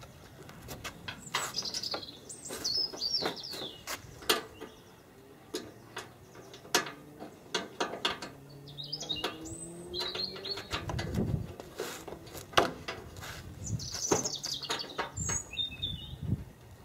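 Small birds chirping in three short runs of quick, falling notes, over scattered sharp clicks and taps of metal nuts and washers being fitted by hand to a car's front wing.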